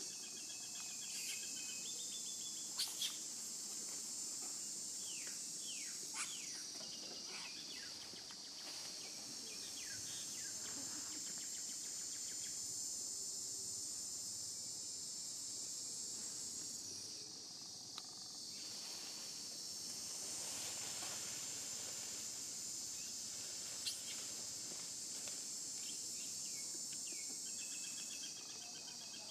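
A steady, high-pitched chorus of insects that dips a little around the middle, with scattered short high calls and a few sharp clicks.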